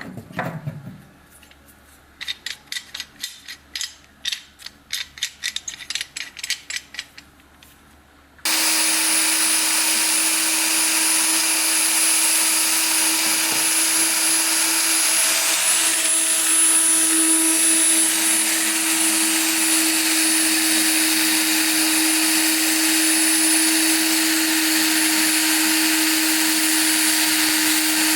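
A quick run of light clicks or taps, then an electric motor of a power tool starts abruptly and runs at a steady speed with a constant whine and hum.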